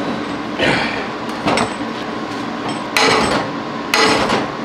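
A hammer striking a cast-iron exhaust manifold four times at uneven intervals, each blow a sharp metal clank with a short ring, the last two the loudest.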